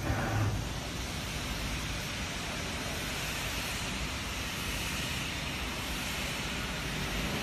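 Steady, even noise from workshop machinery, with a brief low knock right at the start.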